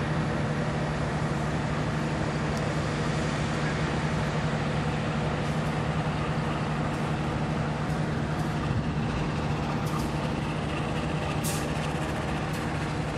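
Steady, even hum of a standing diesel train's engine running at a standstill, with a few faint clicks near the end.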